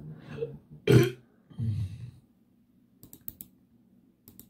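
A loud, short throaty vocal sound about a second in and a lower, rougher one just after, then quick clusters of computer keyboard and mouse clicks as the browser is taken to YouTube.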